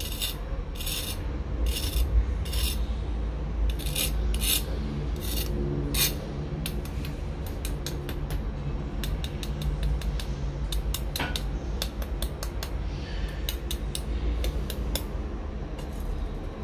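A knife blade scraping and tapping across the blistered, crackling skin of deep-fried pork belly (lechon kawali): crunchy rasping strokes about twice a second at first, then quicker dry ticks from about six seconds in, over a steady low hum.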